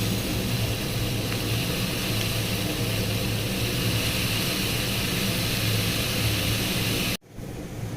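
Steady fan-like mechanical drone, a low hum with an airy hiss over it, that breaks off abruptly near the end and comes back quieter.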